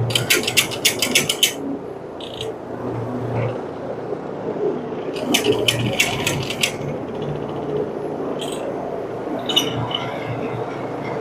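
Carpet cleaning machine running steadily with a low hum. Twice, near the start and about five seconds in, comes a spell of rapid clicking lasting about a second and a half, with a few single clicks later.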